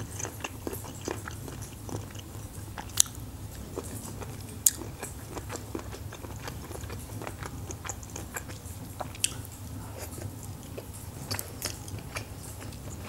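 Close-miked chewing of food, with many small wet mouth clicks, over a steady low fireplace recording crackling in the background. Two sharper clicks stand out a few seconds in.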